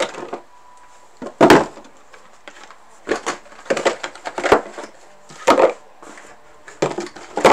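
Tools and objects being picked up, moved and set down on a wooden workbench while it is cleared: a string of irregular knocks and clatters, the loudest about a second and a half in.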